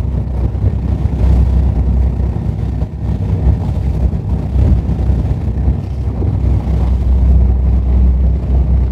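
Fishing boat under way in a heavy swell: a steady low rumble of the engine, with water rushing and breaking along the hull.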